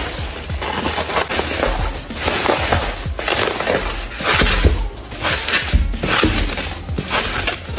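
Thick black plastic bubble wrap being unrolled and pulled off a boxed phone by hand, crinkling and crackling in several handfuls with brief pauses.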